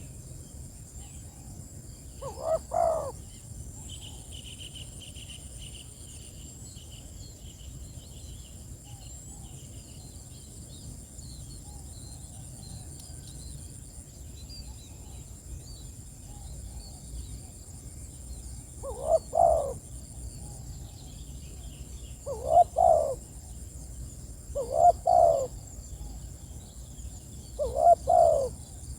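Spotted dove (tekukur) cooing: one short coo phrase about two seconds in, then after a long pause four more phrases about three seconds apart near the end. Faint high chirping and a thin steady high whine, like insects, run underneath.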